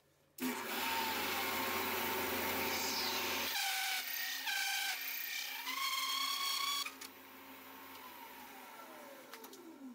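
Shopsmith's motor turning a 2 1/8-inch hole saw at slow speed through acrylic sheet. A steady hum gives way to a high, shifting whine for a few seconds while the saw cuts. The machine then goes quieter and its pitch falls steadily as it winds down near the end.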